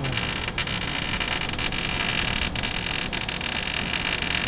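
Welding arc crackling and hissing steadily, with many small sharp pops, as a bead is laid on a steel bracket.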